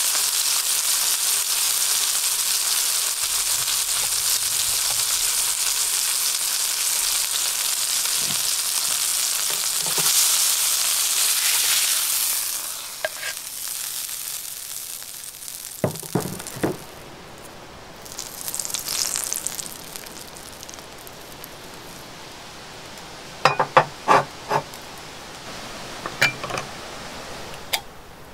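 Beef striploin steak searing over high heat in a pan of hot fat, sizzling loudly; about twelve seconds in the sizzle dies down to a faint spatter. In the quieter second half come scattered sharp clicks and knocks, several in a quick cluster near the end.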